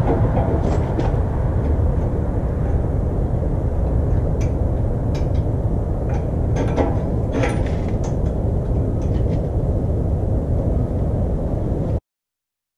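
Kubota BX subcompact tractor's diesel engine idling steadily, with scattered metal clinks as the landscape rake's three-point hitch is worked on. It cuts off suddenly near the end.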